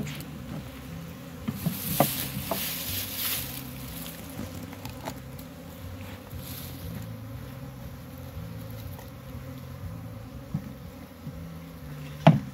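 Honey bees buzzing steadily around an opened colony, a low hum that wavers in pitch. A few clicks and rustles of comb and wooden frame being handled, with a sharp knock near the end.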